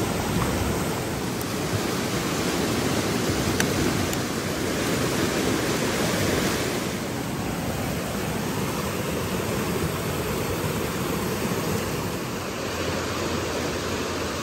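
Fast-flowing river rushing steadily over rapids.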